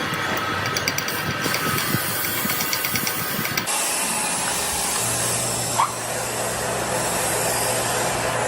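Steady mechanical running noise with quick small clicks. About three and a half seconds in it changes abruptly to a steady low hum.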